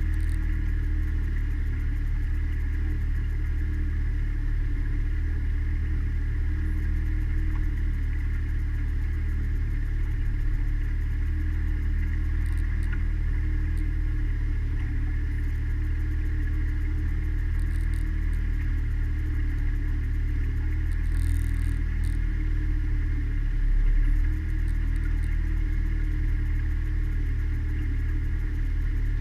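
Mariner outboard motor running steadily at cruising speed, driving a small cabin cruiser along. There is a brief rise in loudness a little after three-quarters of the way through.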